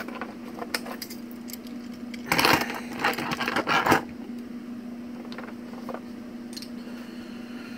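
Legacy Communicator wrist toy being handled and set down on a tabletop: a cluster of clicks and rattles about two to four seconds in, over a steady hum.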